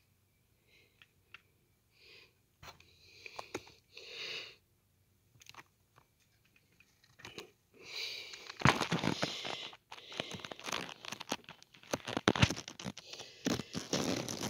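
A cat sniffing at close range in a few short breaths, with small clicks. From about eight seconds in there is loud, close crackling and rustling.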